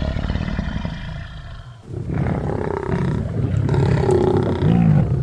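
Lions growling over a fresh kill as they feed: a low rumbling that eases off just before two seconds in, then returns as deeper, rolling growls.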